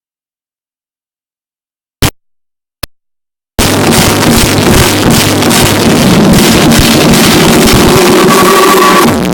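Dead silence with two short clicks, then about three and a half seconds in, loud techno music cuts in abruptly from the festival sound system and carries on at full level.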